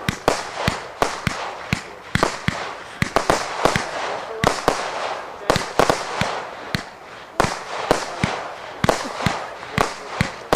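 A multi-shot firework cake firing in rapid succession: a string of sharp bangs, about two to three a second and irregularly spaced, with a hissing between them as the shots rise and burst.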